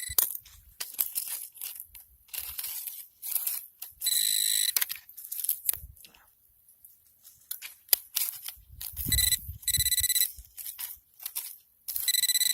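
Handheld metal-detecting pinpointer buzzing with a steady high tone three times, a little under a second each, the middle buzz pulsing rapidly: it is sounding on metal in the burnt debris. Scratchy rustling of the debris being poked through comes between the buzzes.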